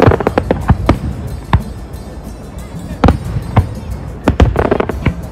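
Fireworks display going off: a fast, irregular string of sharp bangs over a low rumble, with a thicker cluster of bangs and crackle at the start and again about four and a half seconds in.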